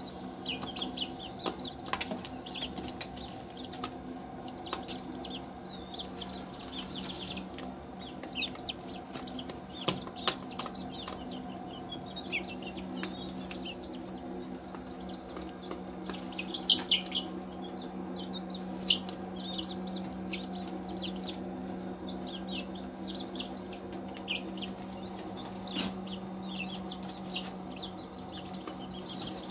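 Chicks peeping continually in short, high, falling chirps while they peck at feed, with sharp taps scattered among them. A steady low hum runs underneath.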